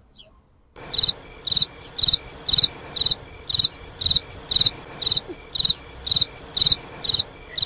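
Cricket chirping in a steady run of short, high chirps, about two a second, starting about a second in after a near-silent moment: the comic 'crickets' sound effect marking an awkward silence when no answer comes.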